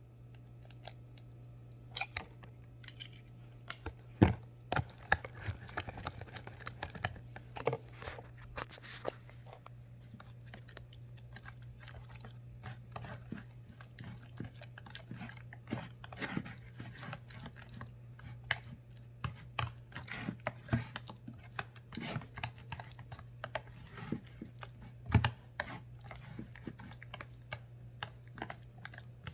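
An egg being cracked and worked in a dish: irregular sharp clicks and taps of shell and utensil against the container, over a steady low hum.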